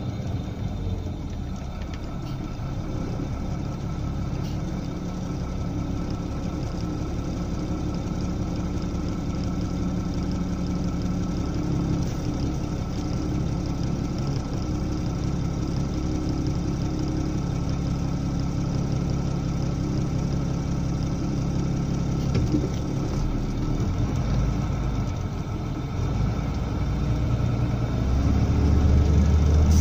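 Engine and road noise of a vehicle driving slowly in traffic, heard from inside the cab. The engine note shifts up and down with speed, and a louder low rumble comes in near the end.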